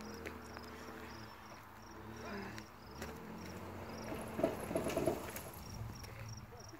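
Ford pickup's engine working as the truck climbs a steep dirt trail, with a louder rough burst about four to five seconds in. Insects chirp steadily, about three chirps a second.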